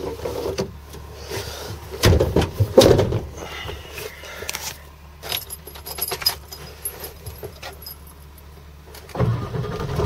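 Keys jangling with clicks and knocks at the steering column. About nine seconds in, the 1996 Ford F-250's 7.3-litre turbo diesel V8 starts right up and settles into a steady low idle.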